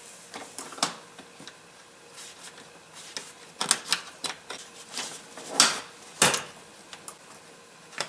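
Small metal hook working the spring clip off a manual window crank handle: irregular clicks, taps and short scrapes of metal against the handle and plastic door panel, with a few sharper clicks in the second half.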